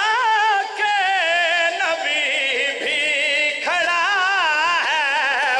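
A man's solo voice chanting a qasida, a devotional Urdu-Punjabi poem, in a high, ornamented melismatic style with wavering, turning pitch, softer around two seconds in and full again from about four seconds.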